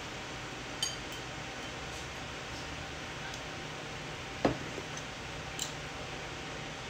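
Tableware clinks and knocks over a steady background hum: a light ringing glass-like clink about a second in, a louder knock about four and a half seconds in, and another small clink shortly after.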